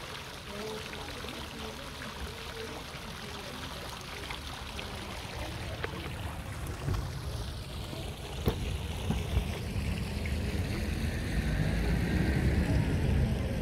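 Water from a tiered stone fountain splashing and trickling into its pool. In the second half a low rumble grows louder, with a few sharp knocks.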